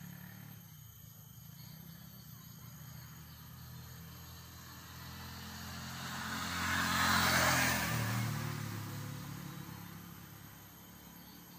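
A motor vehicle passes by, its engine sound swelling to a peak past the middle and then fading away.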